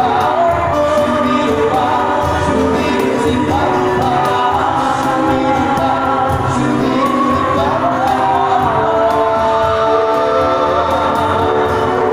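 Male nasyid vocal group singing together in harmony through microphones, several voices at once on a continuous, flowing line.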